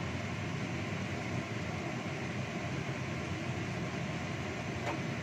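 Wok of chicken wings in thick sauce boiling hard on a stove: a steady rumbling, bubbling noise.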